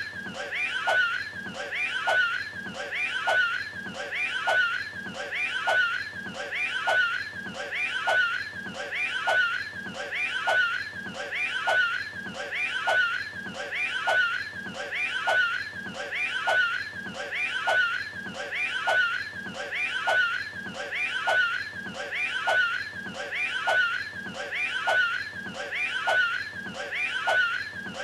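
The Cat in the Hat's exaggerated, cartoonish retching as he throws up a hairball: one short clip looped over and over, roughly once a second.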